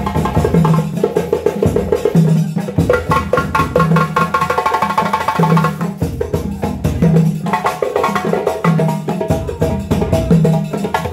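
West African drum ensemble playing: fast djembe strokes over a low drum phrase that repeats about once a second. A held note joins in for a few seconds in the middle.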